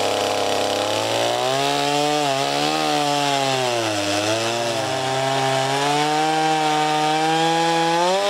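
Two-stroke gas chainsaw cutting a branch stub off a large dead black cherry log, engine held at high revs. The pitch dips briefly as the chain loads up in the wood about two and four seconds in. Near the end the revs jump as the cut breaks through.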